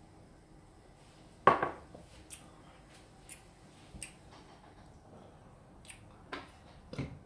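A glass set down with one sharp knock on a hard countertop about a second and a half in, followed by several short light clicks and taps as food is handled over a ceramic plate.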